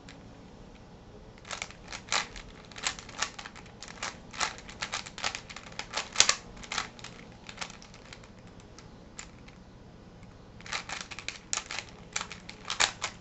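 Rubik's Cube (3x3x3) being turned fast by hand in a speedsolve: quick runs of plastic clicks and clacks from the layers snapping round, with a pause of a couple of seconds in the middle before a last burst of turns.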